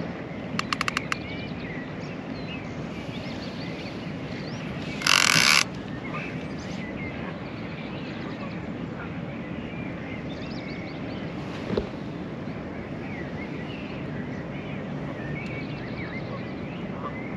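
Steady rush of river water with a fishing reel clicking in a quick run of about eight clicks half a second in, as line is taken during a catfish fight. A brief loud rush of noise comes about five seconds in, and a single knock comes near twelve seconds.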